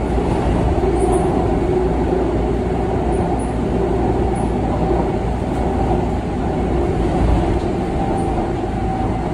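Seoul Subway Line 2 electric train running across a river bridge: a steady running noise of wheels on rail and traction equipment, strongest in the low end.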